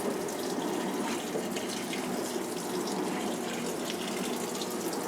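Maytag top-load washing machine filling with water at the start of a wash cycle: a steady rush of water running into the tub.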